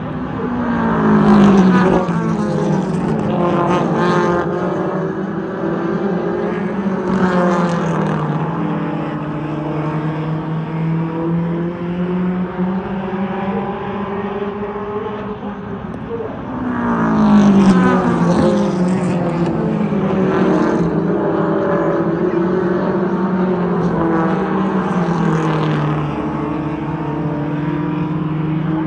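Oval-track race car engines running at speed. Twice, about sixteen seconds apart, the cars come past loudly, their engine note dropping in pitch as they go by. Engines run steadily in between.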